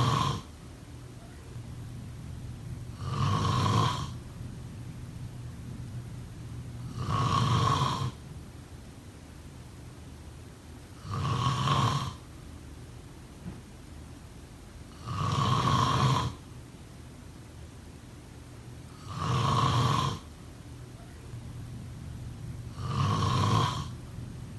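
A sleeping person snoring in a regular rhythm, one snore about every four seconds, each lasting about a second.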